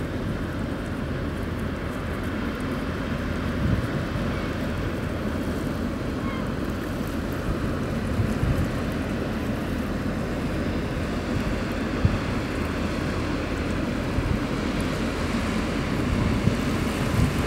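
Steady low rumble of a passing loaded container ship, its engine drone mixed with the rush of its bow wave, with a few brief low bumps from wind on the microphone.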